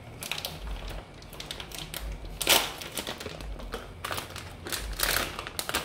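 Plastic shredded-cheese bag crinkling and rustling as it is handled, in irregular short crackles, with one louder crackle about two and a half seconds in.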